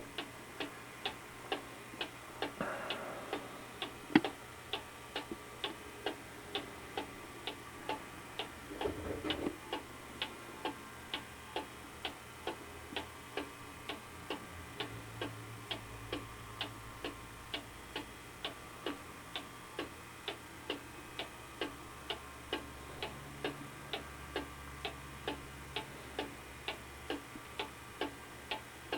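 Vintage mechanical cuckoo clock ticking steadily, about two ticks a second, as it runs up to the hour. A single louder sharp knock comes about four seconds in.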